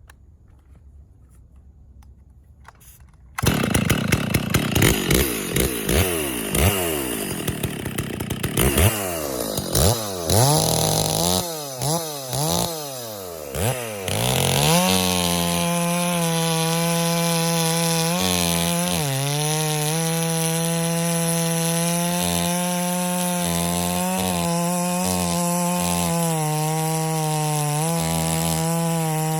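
Freshly rebuilt Stihl MS660 two-stroke chainsaw, fitted with a new crankshaft and clutch-side crankcase. It bursts into life about three seconds in and is blipped up and down several times. For the second half it is held at a steady high speed with a few brief dips, running as a 660 should.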